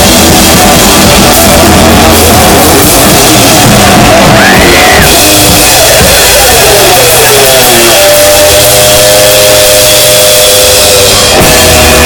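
Live rock band playing loud: electric guitar sliding and holding long notes over a drum kit and bass guitar, with a sharp full-band hit near the end.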